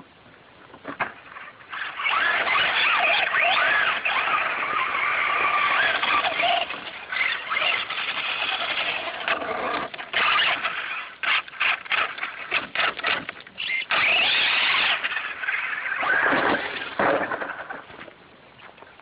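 Traxxas Slash radio-controlled truck's electric motor whining at high speed. Partway through it breaks into a run of short on-off throttle blips. After another full-throttle burst, the whine falls away as the truck winds down.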